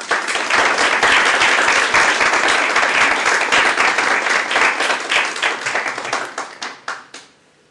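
Audience applauding after a speech: a dense run of clapping that thins to scattered claps and dies away near the end.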